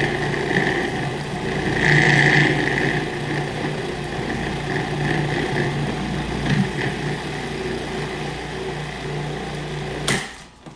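Cuisinart food processor motor running steadily while whole wheat dough tumbles inside and gathers into a ball, a sign that the dough is fully mixed. It is louder for a moment about two seconds in and cuts off abruptly near the end.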